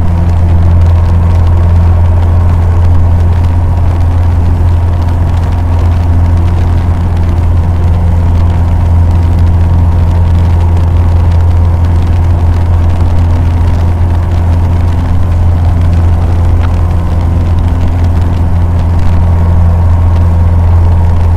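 Cessna 150's four-cylinder Continental O-200 engine and propeller droning steadily at constant power, heard from inside the cockpit.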